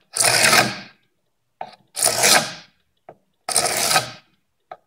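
Hand glue scraper drawn along a glued-up wooden board, scraping off dried excess glue in three strokes of under a second each.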